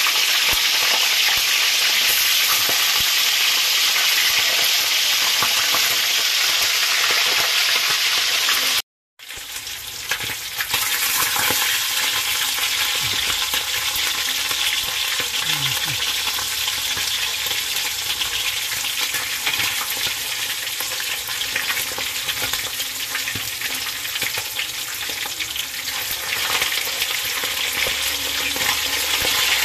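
Swordfish pieces sizzling steadily as they fry in oil in a stainless steel wok. After a brief dropout about nine seconds in, a metal spatula scrapes and taps in the pan as the pieces are turned.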